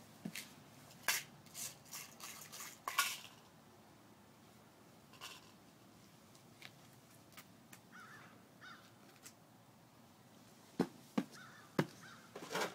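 Scattered sharp clicks and knocks from a wrist slingshot being handled and shot: a cluster about a second to three seconds in, then three sharp taps near the end.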